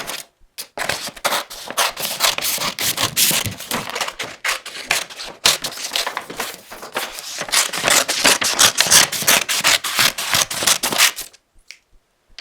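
Scissors cutting thin paper sheets: a fast run of crisp snips and paper rustle, pausing briefly twice and stopping about a second before the end.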